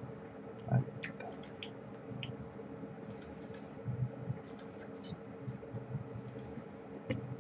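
Faint, scattered clicking of a computer mouse and keys, in small clusters every second or so, over a faint steady hum.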